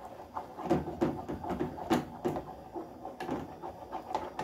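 A utensil scraping and knocking against the sides of an aluminium saucepan in quick, irregular strokes while stirring cream into a thick chocolate topping.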